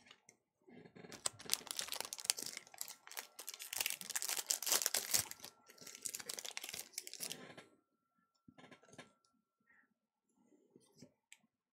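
Foil booster-pack wrapper crinkling and tearing as it is opened by hand, a dense crackle for about seven seconds. After it stops, a few faint ticks.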